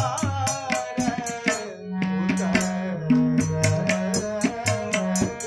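A man singing a classical Kumauni Holi song in a drawn-out melodic line, accompanied by held harmonium notes and steady hand-drum strokes.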